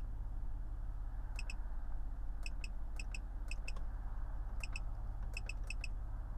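About seven pairs of short, sharp ticks at uneven intervals from the Ford F-150 police truck's Whelen emergency lighting system as its front scene lighting is worked, over a steady low hum.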